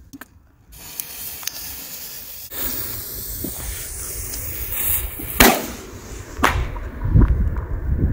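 Funke Drachenflug daytime firework burning after ignition: a steady hiss broken by sharp cracks as it fires its shots, the loudest about five and a half seconds in and another a second later. Wind rumbles on the microphone near the end.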